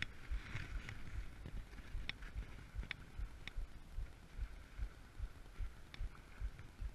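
Sailboat under way at sea: wind buffeting the microphone in irregular low thumps over a steady wash of water along the hull, with a few sharp clicks.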